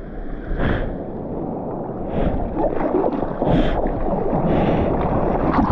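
Sea water rushing and splashing around a surfboard close to the microphone, with sharper splashes about half a second, two seconds and three and a half seconds in. It grows louder as the board is taken by a breaking wave.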